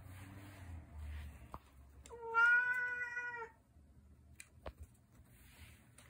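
Hungry tabby cat giving one long, level-pitched meow of about a second and a half, near the middle, asking for food.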